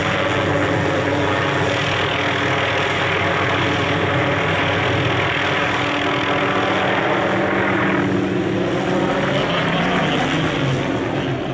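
Hughes MD 500 helicopter flying overhead, its turboshaft engine and rotors running steadily. About eight seconds in the higher part of the sound thins out as the helicopter moves away.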